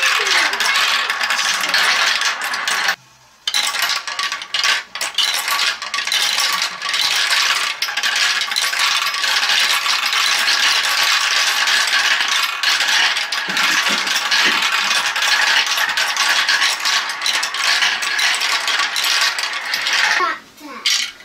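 Glass marbles rolling and clattering through a plastic Galt marble run and knocking its paddle wheels round, a steady dense rattle of many small clicks. A brief break comes about three seconds in.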